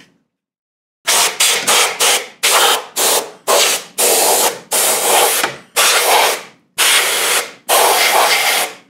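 Can of compressed air duster spraying in a run of about a dozen hissing blasts, starting about a second in, short at first and then longer ones of most of a second, blowing dust out of a CD changer's dirty disc tray.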